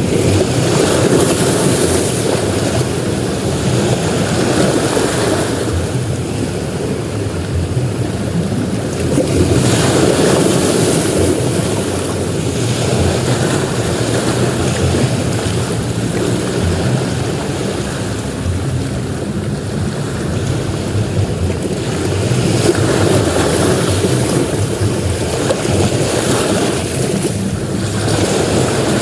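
Sea surf washing onto a beach: a continuous rushing noise that swells several times as waves break and ebbs in between.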